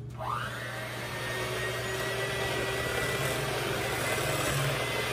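Electric mixer starting up about a quarter second in with a rising whine, then running steadily as it beats cream cheese, sugar, vanilla and sour cream into cheesecake batter.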